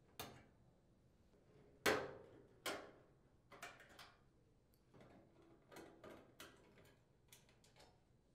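Scattered light clicks and taps as a nut driver backs screws out of a dryer's sheet-metal front panel and the panel is handled, about a dozen at uneven spacing, the loudest two about two seconds in.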